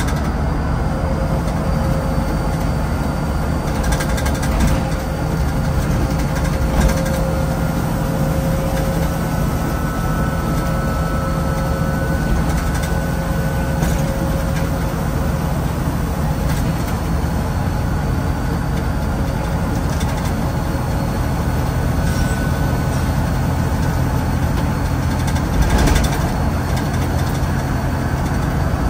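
Inside a Scania N94UD OmniDekka double-decker bus under way: the 9-litre five-cylinder diesel runs at a steady pitch over road noise, with a few short knocks and rattles.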